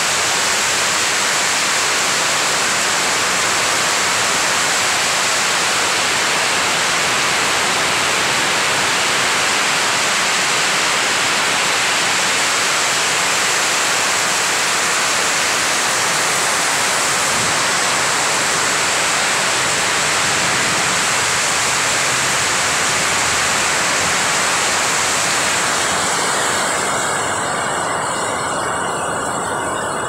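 Heavy rain pouring down and drumming on a corrugated metal roof, a dense, steady rush that turns a little softer near the end.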